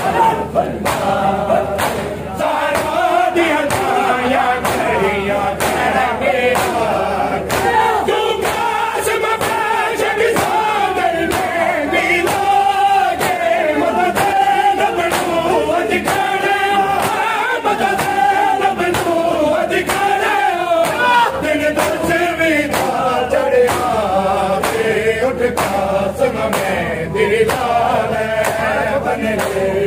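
Men's voices chanting a Shia noha in chorus, with rhythmic matam (chest-beating) slaps keeping time, about one and a half a second.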